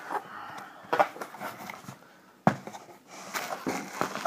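Cardboard shipping box being opened by hand: flaps rustling and scraping, with a few sharp knocks, the loudest about two and a half seconds in.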